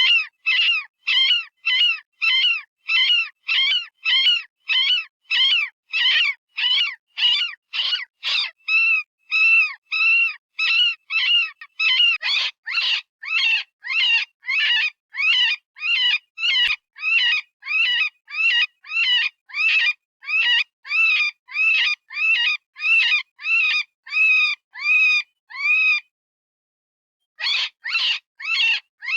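Software-generated rabbit distress call, the electronic scream used as a predator call: short wailing squeals repeated about twice a second, each rising then falling in pitch. They stop for about a second and a half near the end, then start again.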